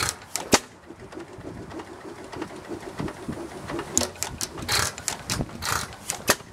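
1917 Waterloo Big Chief 4.5 HP single-cylinder hit-and-miss engine running on petrol: a few sharp firing beats near the start and another run of them from about four seconds in, with a lighter mechanical clatter between them as it coasts. The engine fires only when its hit-and-miss governor calls for power, missing cycles in between.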